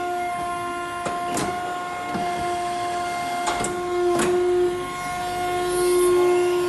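A machine running with a steady whine, with several sharp clicks or knocks through it.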